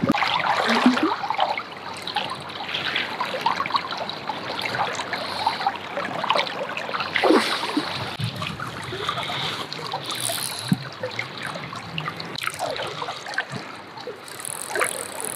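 River water splashing and gurgling against the side of the boat, a busy run of small splashes and trickles.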